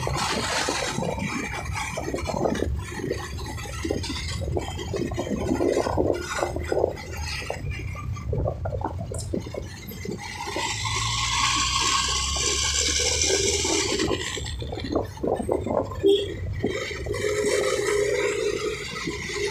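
Wind buffeting the microphone of a motorcycle moving through city traffic, over the low rumble of the engine and road, rising and falling unevenly.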